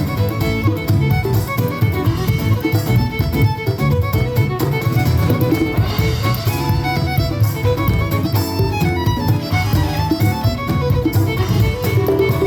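A live band playing a fiddle-led tune, the fiddle carrying the melody over guitar and a full, steady bass.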